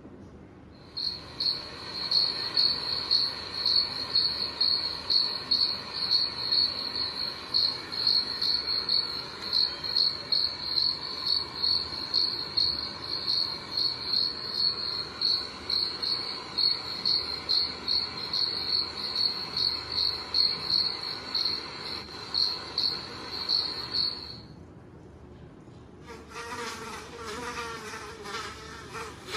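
Recorded cricket chirping, played from a phone's cat-game video: a high, pulsing chirp, about two pulses a second, that stops about 24 seconds in. A couple of seconds later a buzzing insect sound with a wavering pitch starts, like a fly or bee.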